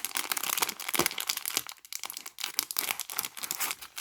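Crinkly packaging of a small building-block set being handled, a dense run of irregular crackles that thins out after about a second and a half.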